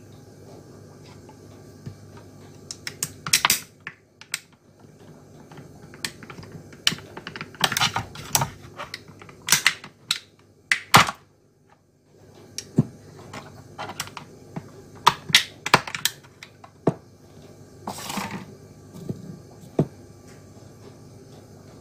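Irregular clicks and crackles of a thin clear plastic blister tray being squeezed and flexed by hand as two large electrolytic capacitors are popped out of it, with a few sharp single taps.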